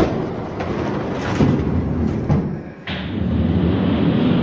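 Die-cast toy monster trucks rolling and clattering down an orange plastic race track, with a sharp knock at the start and several thumps. About three seconds in, the sound cuts off suddenly into a steadier background.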